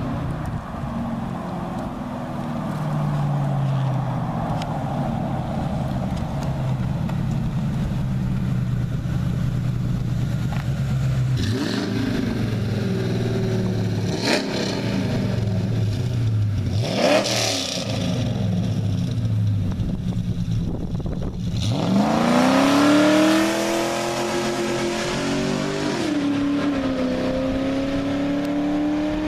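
Ford Crown Victoria's 4.6-litre V8 exhaust. It runs steadily at low revs for about ten seconds, is revved up and down a few times, then goes to wide-open throttle a little past twenty seconds in. The pitch rises hard, dips briefly a few seconds later as it changes gear, then climbs again as the car pulls away.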